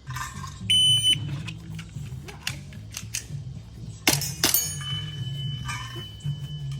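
A short electronic beep about a second in, then a few sharp airsoft gun shots or BB hits on targets, the loudest pair near the four-second mark, over background music with a steady low beat.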